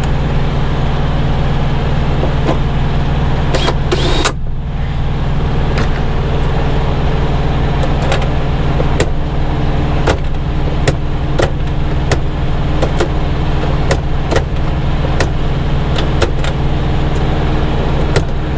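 Truck engine idling steadily, with scattered clicks and knocks of hand work on a truck door panel and a short louder rattle about four seconds in.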